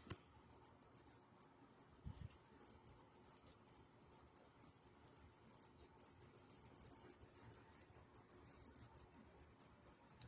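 Baby bird cheeping: a fast, uneven series of short, very high-pitched chirps, several a second.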